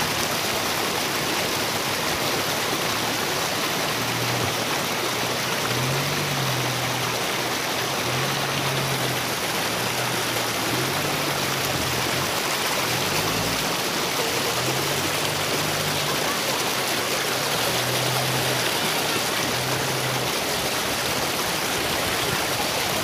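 A rocky stream rushing over stones, a steady even noise. Under it, a faint low engine drone from a Toyota Fortuner SUV driving through the stream rises and falls through the middle stretch.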